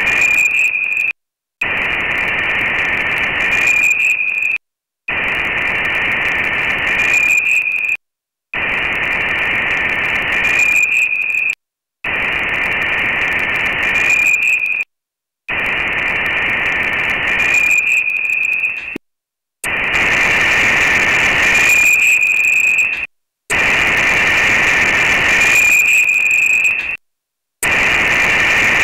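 Radio-style static in repeated bursts of about three seconds each, nine in all, each cut off by a short dead silence. A brief high tone sounds near the end of each burst.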